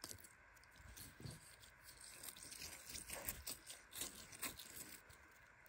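Slime being squeezed and pulled apart by hand, giving faint, irregular sticky clicks and crackles.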